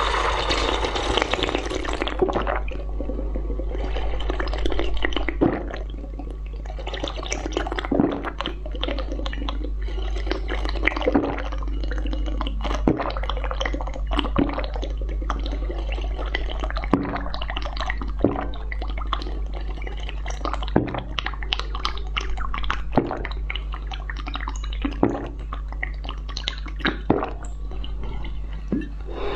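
Wet slurping and gulping as a yellow jelly drink is drunk from a glass, with a swallow or mouth click every second or two. A steady low hum runs underneath.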